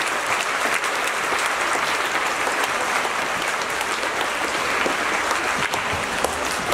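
Audience applauding steadily, a large crowd clapping in a hall after a student's poem reading.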